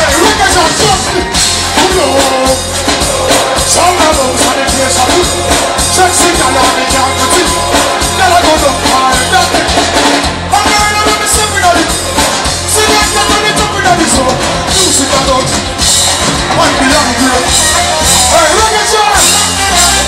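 Live reggae band playing loud through a PA, with electric guitar, drum kit, bass and keyboards under a steady beat, and a male vocalist singing over it.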